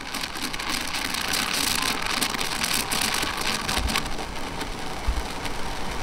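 Petrus PE3320 espresso machine's steam wand, fitted with its wide tip, frothing milk in a stainless steel pitcher: a steady hiss with crackling as air is drawn into the milk, whipping it into a thick, very foamy, cappuccino-like froth.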